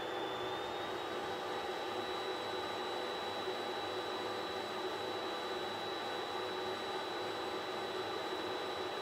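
Geeetech Mizar S FDM 3D printer running a print at 60 mm/s: a steady whir of fans with a thin high whine that edges up slightly in pitch about half a second in.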